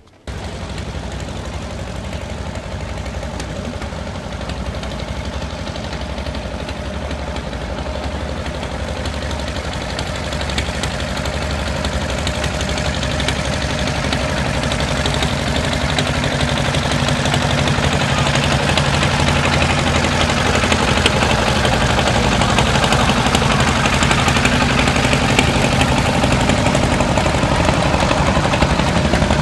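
A boat's engine running steadily on the river, growing gradually louder as it comes closer.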